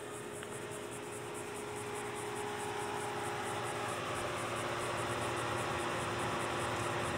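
Ambience of insects chirping in a fast, even pulse over a steady hiss, slowly growing louder as a car draws up.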